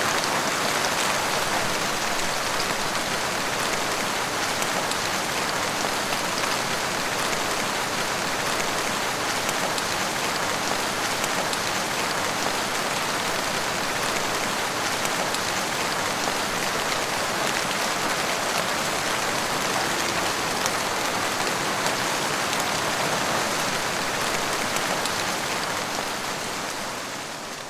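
Heavy rain falling steadily, a dense even hiss of drops, fading out near the end.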